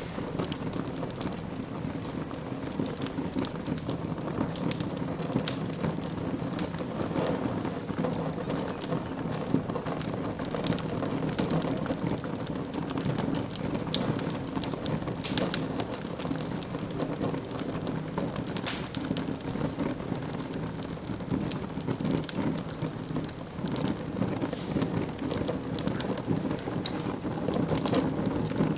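Wood fire in a fireplace crackling: a steady low rush of burning with many sharp, irregular pops and snaps.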